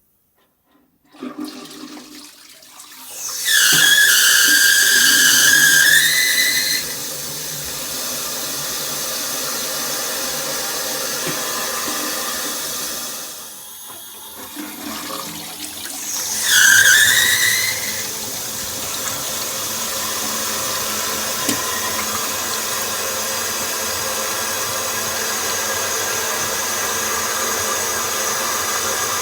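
Daiwa Kasei Sofia FZ500 simple-flush toilet flushing: water rushes through the bowl, and twice a loud, high, slightly rising whine sounds for a few seconds before the flow settles into a steady run. The whine is the abnormal noise the fixture makes when water discharges under high water pressure.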